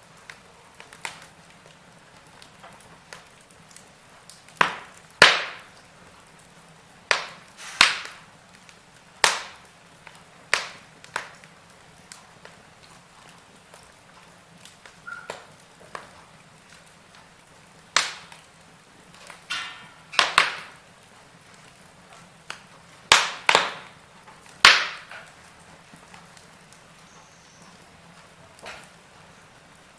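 Wood fire crackling in a fireplace: irregular sharp pops and snaps, some in quick pairs, over a faint steady hiss.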